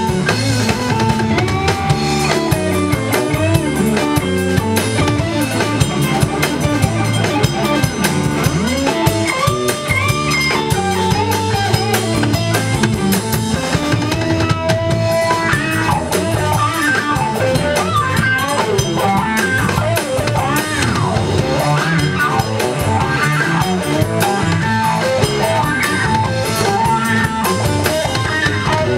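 Live blues band playing an instrumental break: drum kit, electric bass and electric guitar, with saxophone, and no singing.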